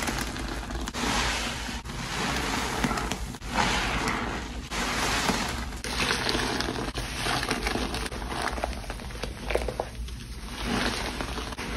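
Frothy cleaning solution of Pine-Sol, Lestoil and Murphy's Oil Soap being swished and agitated in water: a repeated swishing that swells about once a second, with small crackles from the foam.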